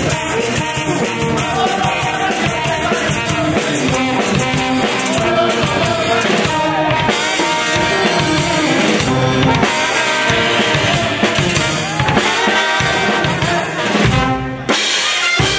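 Brass band playing live, with saxophones, clarinets, trumpets and sousaphones over bass drum, snare and crash cymbals.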